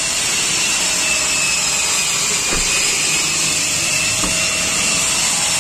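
Steady whirring machine noise with faint steady tones in it, plus a couple of faint knocks about two and a half and four seconds in.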